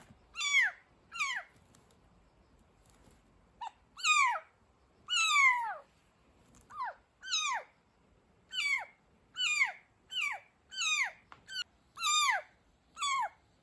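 Young kitten meowing over and over, high-pitched cries that each fall in pitch, about one a second with a pause of two seconds near the start.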